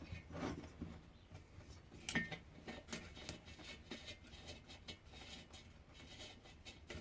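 Faint, irregular clicks and taps of screws and a hand tool being fitted into a diesel heater's casing, with one sharper click about two seconds in.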